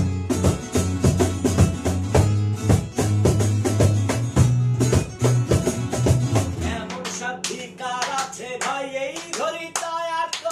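Small acoustic folk band playing: strummed acoustic guitars, a bass guitar and a cajon keep a busy steady beat. About seven seconds in, the bass and drum drop out, leaving voices singing over light guitar and hand claps.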